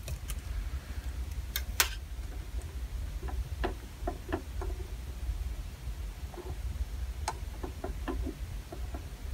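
Soldering a new capacitor's leads into a circuit board: scattered small clicks and ticks as the soldering iron works the joints, over a steady low hum.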